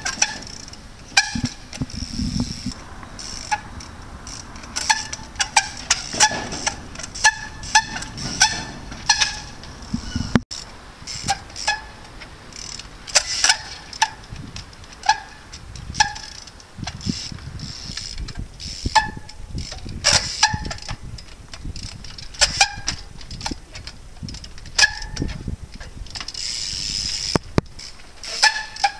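Trials bicycle being hopped and balanced on walls and rocks: a run of sharp knocks and clicks from the tyres and frame landing, with short squeaks between them.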